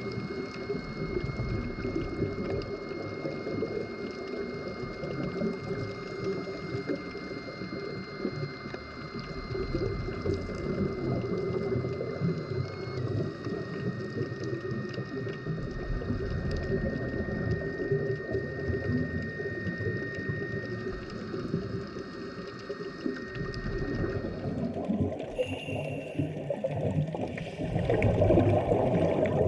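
Underwater recording: steady water rush with a thin, steady high-pitched whine that drops slightly in pitch about halfway through. Near the end the whine gives way to other high tones and the rushing grows louder.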